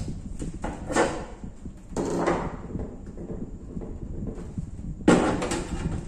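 Knocks and clunks of parts being handled inside an opened microwave oven's sheet-metal casing: a knock about a second in, a short clatter at two seconds, and the loudest knock just after five seconds, with light rattling in between.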